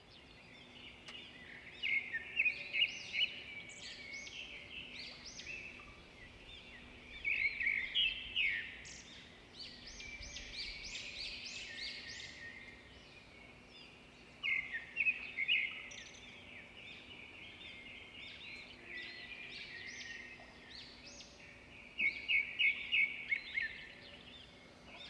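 Birds singing and chirping, with loud bursts of rapid repeated chirps every several seconds and softer calls between them, over a faint steady low hum.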